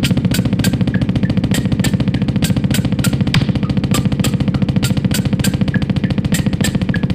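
Music with a fast, steady drum beat and heavy bass, played loud through a homemade mini speaker box with three small speakers.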